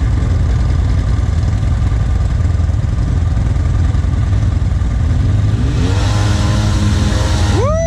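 ATV engine running at a low, steady drone as the four-wheeler works along a muddy rut, then revving up in rising sweeps over the last two seconds.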